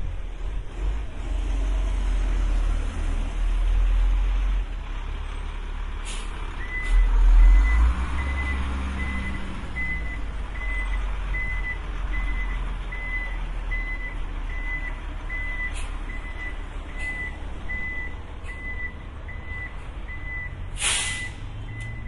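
Urban road traffic with heavy vehicles and a low engine rumble. From about seven seconds in, a high warning beeper pulses evenly about one and a half times a second. A short, loud air-brake hiss comes near the end.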